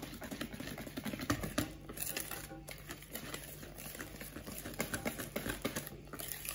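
Wire hand whisk beating thick chocolate cake batter in a ceramic bowl: rapid, irregular clicking and tapping of the wires against the bowl.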